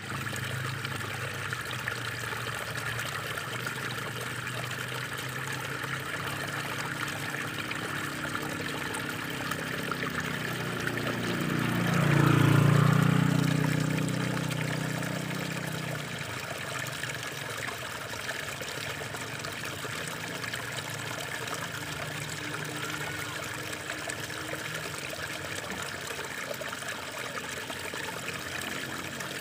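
Water pouring steadily from a spout into a shallow pool, with a constant splashing trickle. A low rumble swells around the middle and fades again.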